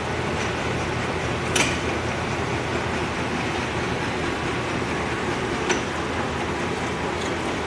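Warner & Swasey No. 4A turret lathe running with a steady mechanical rumble and whir, with two sharp metallic clicks, about a second and a half in and near six seconds, as the carriage handwheel and levers are worked.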